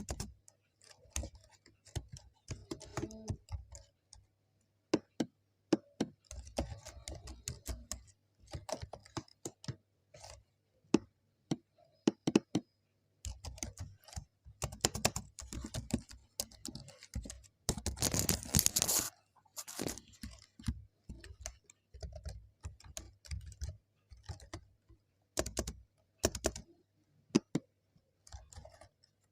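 Typing on a computer keyboard: irregular key clicks at an uneven pace, with a longer, louder run of rapid noise a little past the middle.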